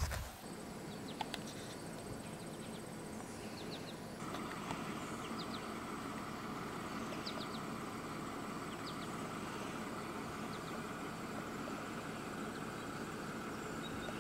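Countryside ambience: scattered short, falling bird chirps over a steady hiss, with a steady drone joining about four seconds in.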